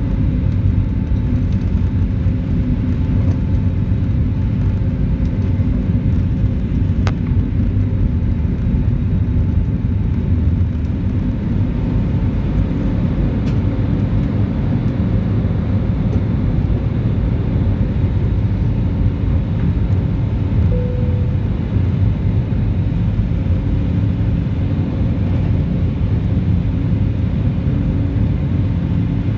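Cabin noise inside an Airbus A320neo at takeoff power: a loud, steady rumble of the turbofan engines and airflow through the takeoff run, lift-off and initial climb. There is a single click about seven seconds in.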